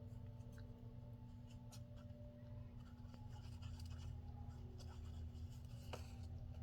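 Paper being handled on a craft table: faint rustles, scrapes and small taps scattered throughout, over a low steady hum.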